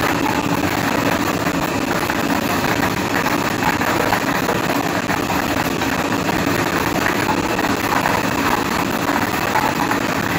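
Lottery draw machine running: a steady motor and air noise, with light plastic balls clattering as they tumble around inside a clear acrylic drum.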